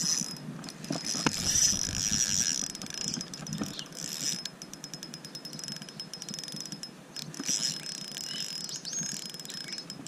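Spinning reel being cranked to retrieve a lure, its gears giving a fast, fine ticking whir.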